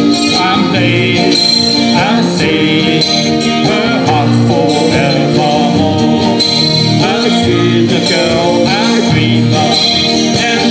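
Live band playing loudly: electric guitars and a drum kit keeping a steady beat, with a wavering lead melody on top.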